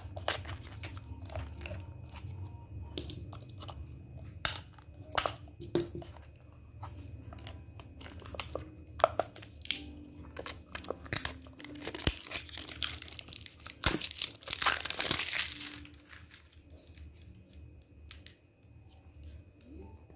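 Clear plastic wrapping crinkling and tearing as it is pulled off small rolls of sticker tape by hand, in many short crackles. The crinkling grows dense a little past the middle, then dies down near the end.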